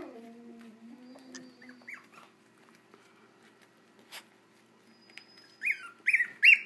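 Young puppies whimpering: a low, drawn-out whine over the first two seconds, then three short high-pitched yelps in quick succession near the end.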